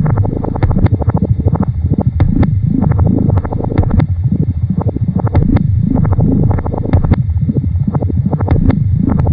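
Experimental electronic noise: a dense, rapid low pulsing laced with sharp clicks and repeated falling and rising pitch sweeps.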